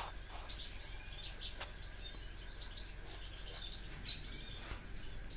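Small birds chirping softly and off and on, in short high chirps. There is one sharp click about four seconds in.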